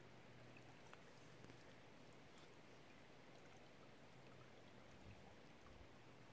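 Near silence: only a faint, even hiss of river water around a drifting kayak, with a couple of faint ticks.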